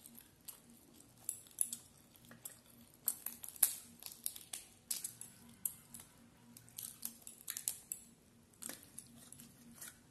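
Close-up eating sounds: fingers breaking apart a whole curried prawn in its shell on a steel plate, along with chewing, giving clusters of sharp wet clicks and crackles.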